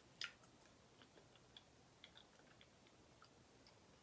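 Faint chewing of soft cheesecake: quiet mouth clicks and smacks, with one sharper click about a quarter second in.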